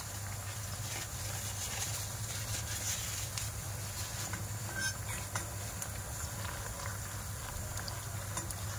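Chopped onions frying in butter in a steel pot, a steady sizzle with many small crackles and pops, over a low steady hum.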